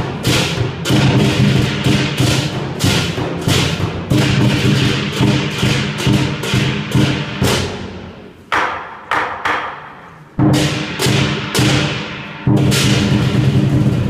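Chinese lion dance percussion: the big barrel drum beaten in rapid strokes with repeated crashes of hand cymbals. The playing thins out to a few separate hits around the middle, then comes back full, and louder again near the end.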